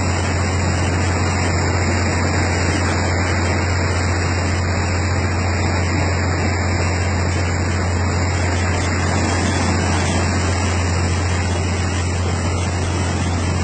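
A boat's engine running with a steady low drone under the continuous rush of river water washing across the deck as the boat pushes through rough, fast current.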